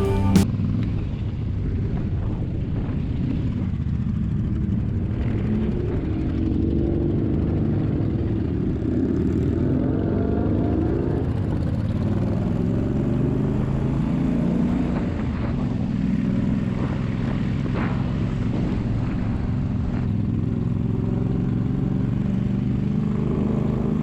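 Motorcycle engine running on the move, its pitch rising and falling with the throttle over a steady low rumble.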